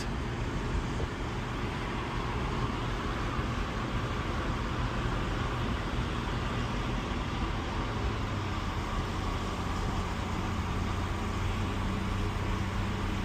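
Holden VY Commodore running steadily under load on a steep uphill, its engine drone mixed with tyre and road noise, heard from inside the cabin.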